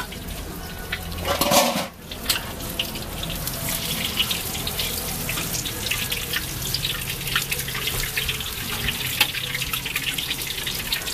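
Stinky tofu deep-frying in a wok of hot oil: a continuous crackling sizzle. There is a short louder noise about a second and a half in.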